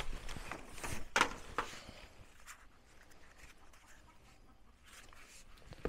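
Light handling noises while items are taken from a box: a few soft taps and rustles, the loudest about a second in, then mostly quiet with one more click near the end.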